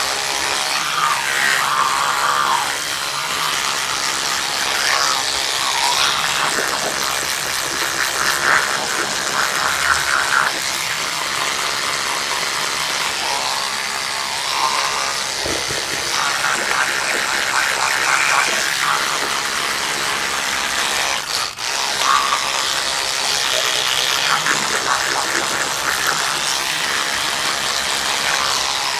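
Electric toothbrush buzzing against the teeth during brushing, its tone shifting every second or two as the brush head moves around the mouth, with a brief break about two thirds of the way through.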